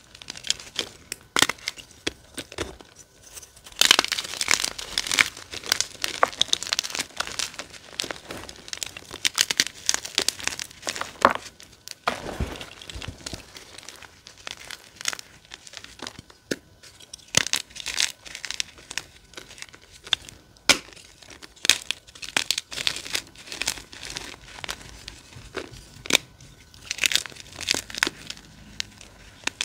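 Blocks of dyed gym chalk being squeezed and broken apart by hand, crumbling with dry crunches and sharp crackles in irregular bursts. One dull thud comes about twelve seconds in.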